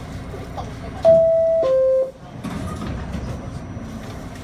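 Two-tone door chime of an R68A New York subway car, a higher tone then a lower one, each about half a second, sounding about a second in as the warning that the doors are about to close. Under it runs the steady low rumble of the car standing in the station.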